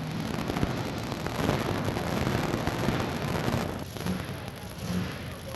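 Modified pulling tractor's engine running, a rough, noisy sound full of rapid pops.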